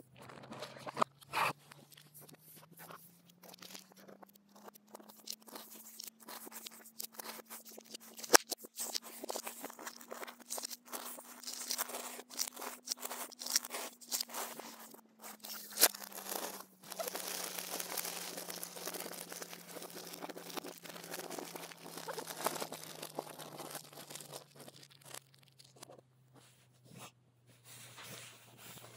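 Cardboard jigsaw puzzle pieces being broken apart and swept around: a dense run of crackling, snapping and rustling with sharp clicks, busiest in the middle and thinning out near the end, over a faint low hum.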